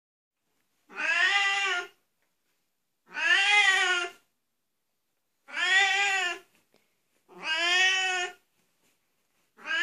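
Oriental Shorthair cat meowing loudly, four drawn-out calls of about a second each, evenly spaced about two seconds apart, each rising and then falling in pitch, with a fifth starting near the end.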